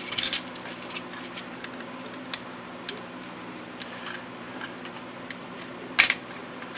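Light plastic clicks and taps as a circuit board is worked free from the retaining tabs of a power window switch housing, with one sharper click about six seconds in. A steady low hum runs underneath.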